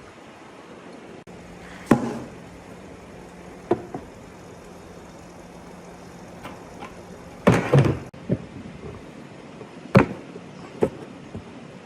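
A handful of separate sharp knocks and clunks, a few seconds apart, with the loudest a clattering cluster about two-thirds of the way through, over a faint steady low hum.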